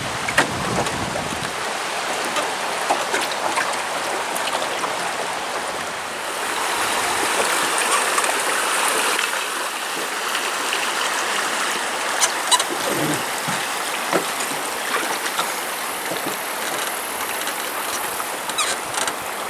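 River current rushing and rippling around a drift boat, a steady wash of water that swells for a few seconds from about six seconds in. A few light knocks come through over it.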